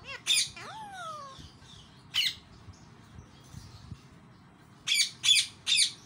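Alexandrine parakeet squawking in short, harsh calls: one at the start, another about two seconds in, and three in quick succession near the end.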